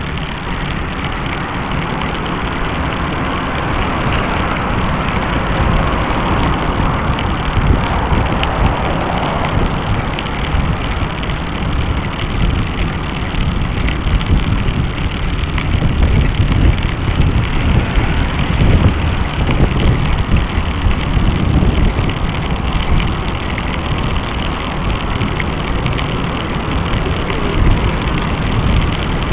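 Steady rumble of wind buffeting and tyre-on-pavement road noise on the microphone of a bicycle-mounted mini action camera while the bike is ridden.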